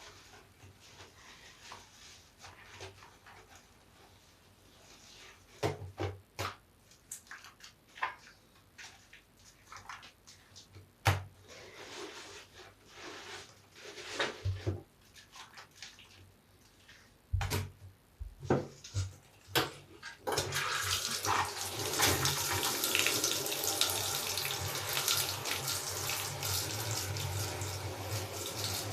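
Large soapy bath sponge being squeezed and kneaded with soap scraps: scattered wet squelches and clicks. About twenty seconds in, a steady rush of water starts and continues.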